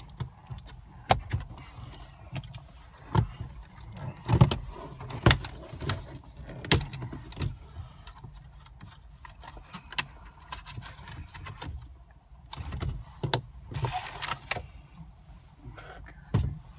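BMW plastic dashboard trim and the centre air vent being pried and unclipped with a trim tool: irregular sharp clicks, knocks and scraping of plastic, with a rustling stretch near the end.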